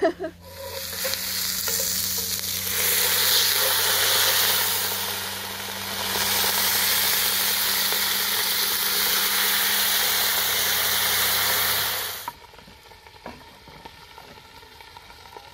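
Red wine poured into a hot cast-iron camp oven, sizzling as it deglazes the fried garlic, onion and herbs. The hiss builds over the first few seconds, dips briefly near the middle, then holds steady until it cuts off suddenly about twelve seconds in.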